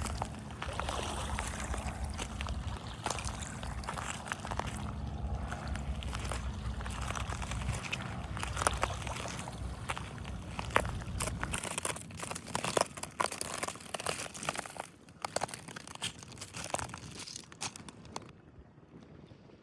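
Water sloshing at the shoreline with many crackling, crunching clicks. A low rumble underneath drops away about halfway through, and the sound grows quieter near the end.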